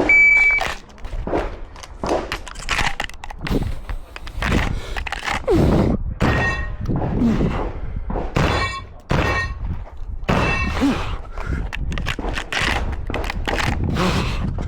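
A shot timer's start beep, then a fast string of shotgun shots from a semi-automatic shotgun, fired in quick groups with short breaks between them.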